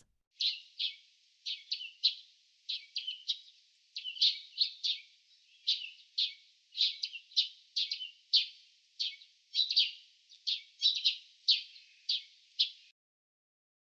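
A bird chirping: a long run of short, high chirps, two or three a second, that stops suddenly about a second before the end.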